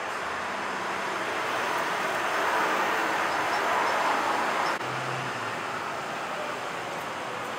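City road traffic: a steady rush of passing cars and scooters that swells as vehicles go by about three to four seconds in, then drops suddenly just before five seconds and carries on a little quieter.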